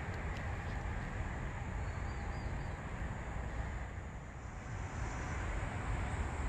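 Outdoor ambience with a steady low rumble, and a faint bird chirp about two seconds in.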